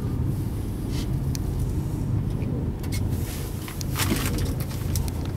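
Mercedes-Benz Actros 1845 tractor truck's inline-six diesel engine running, a steady low rumble heard inside the cab, with a few faint clicks.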